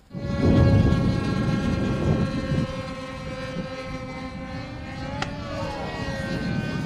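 Radio-controlled model airplane engines droning at a steady high pitch as the planes fly past, with a second engine's pitch gliding up and down from about five seconds in. A low rumbling noise is loudest in the first second.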